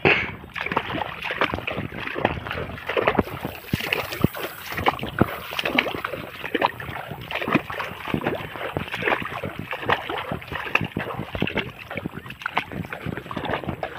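Dense, irregular rustling and sloshing from someone moving through tall reeds along a shallow water channel, starting abruptly.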